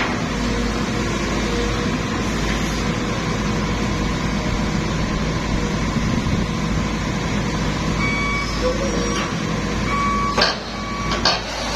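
Sumitomo SH210 excavator's diesel engine running steadily under load as it climbs onto a transport vehicle, with two sharp metallic knocks about a second apart near the end.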